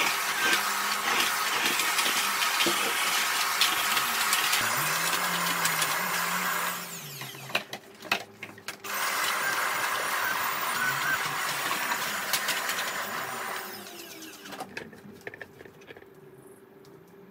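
Sauber canister vacuum cleaner running at full suction. It is switched off about seven seconds in, with a few knocks as it is moved, and comes back on about two seconds later. Its motor winds down near the end as it is switched off again.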